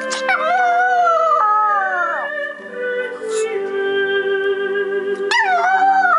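Yorkshire terrier howling along to music: a long howl that jumps up and slides down in pitch just after the start, and a second one about five seconds in, over music with long held notes.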